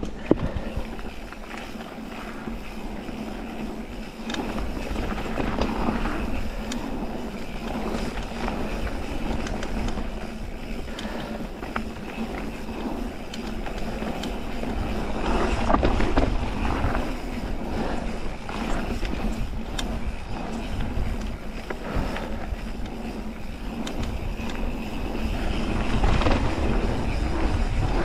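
Mountain bike rolling downhill on a gravel and dirt trail: tyre noise on the loose surface with the bike rattling over bumps and wind rumbling on the microphone, louder in a couple of faster stretches.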